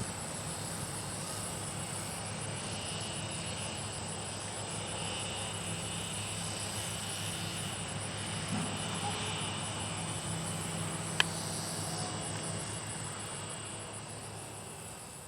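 Insects chirring in a steady, high-pitched, pulsing chorus, with a single sharp click about eleven seconds in; the sound fades out near the end.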